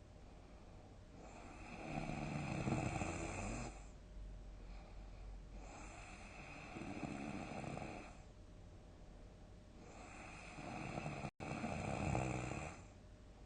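A sleeping person snoring loudly in a steady rhythm: three long snores about four to five seconds apart, the middle one softer than the other two. A split-second dropout falls inside the third snore.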